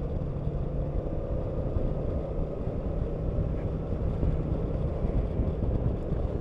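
Kymco AK550 maxi-scooter running steadily on the road, its engine hum mixed with heavy low rumbling wind and road noise on the microphone.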